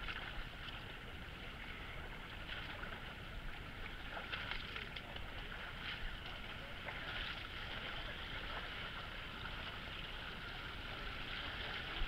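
Shallow creek water running over rocks, with irregular splashes of feet wading through it.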